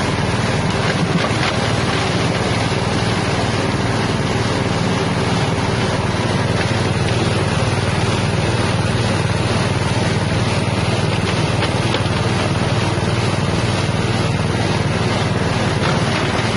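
Engine-driven herb and spice grinding machine with a 6.5 hp motor, running loudly and steadily.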